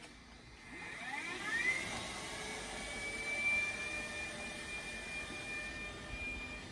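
Bernardo BF35BDC drilling machine's spindle motor spinning up, its whine rising in pitch over the first two seconds or so, then running steadily at speed.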